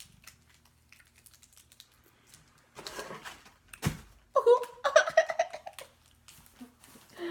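Light clicking and crinkling of candy packaging being handled, then a sharp thump about four seconds in as the candy drops, followed at once by a loud, high wordless vocal exclamation lasting about a second.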